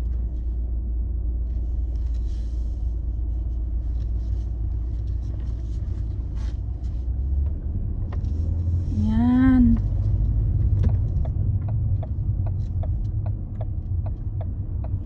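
Low rumble of a car's engine and tyres heard from inside the cabin while driving slowly. There is a brief hum about nine seconds in, and from about ten seconds in the turn indicator ticks at about one and a half clicks a second.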